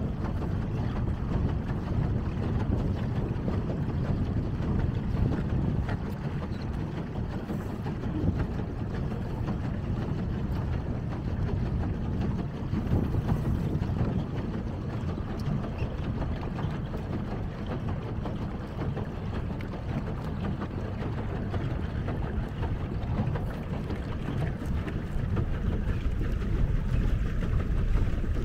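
Steady low rumble of wind buffeting the microphone, mixed with water churning and lapping around a pedal boat.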